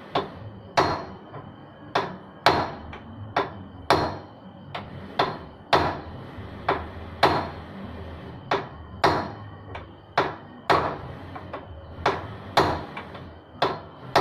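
Repeated hammer blows, about twenty sharp strikes at an uneven pace of roughly one every half second to a second, each with a short ring.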